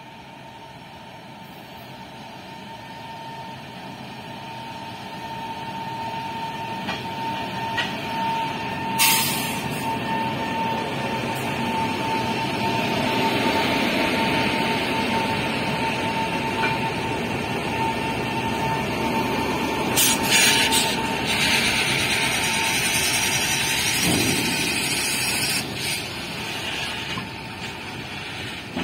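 A freight train hauled by twin WAG9 HC three-phase electric locomotives approaches and passes close by, its rumble and rail noise growing louder over the first dozen seconds and then staying loud as the loaded covered wagons roll past. A steady high whine runs through the first half and stops as the locomotives go by, and sharp loud clatters stand out about nine seconds in and again around twenty seconds.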